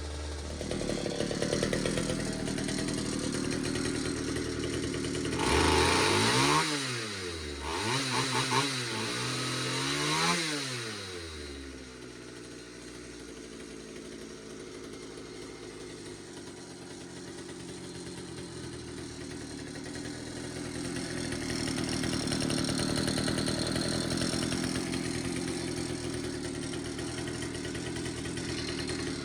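Pioneer P-41 chainsaw's 66cc two-stroke engine running. It is revved up and let back down three times in quick succession, about six to eleven seconds in, then settles back to a steady idle.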